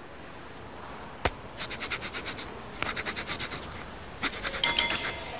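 Cartoon sound effect of a coin scratching the coating off a lottery scratch ticket: a click, then three quick runs of rasping scratches. A short high tone sounds near the end.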